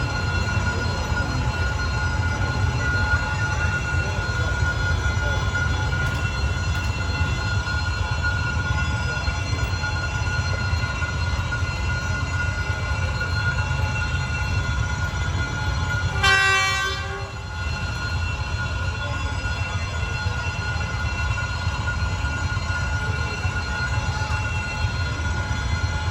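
Diesel-hauled passenger train rolling slowly into a station, a steady rumble of wagons with a steady high squeal. About two-thirds of the way through, a short horn blast of about a second sounds.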